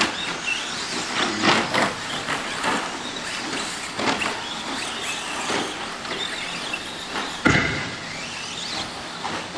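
Radio-controlled short-course off-road trucks racing on a dirt track: a steady hiss of motors and tyres, with scattered knocks and clatters. One louder thump comes about seven and a half seconds in.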